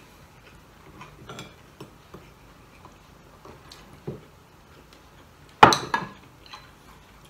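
Metal spoon tapping and scraping in a bowl of soup, with one sharp, loud clink of spoon on bowl late on and a softer one just after.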